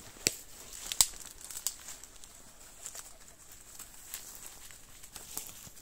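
Footsteps over dry debris: a few scattered sharp cracks and crackles, roughly a second apart, over faint rustling.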